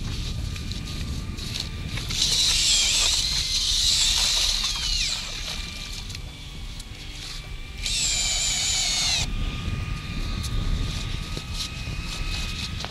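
Hand-cranked ice auger boring through lake ice: two spells of high scraping and squealing from the blades, one starting about two seconds in and a shorter one about eight seconds in, the second cutting off suddenly. Low wind rumble on the microphone throughout.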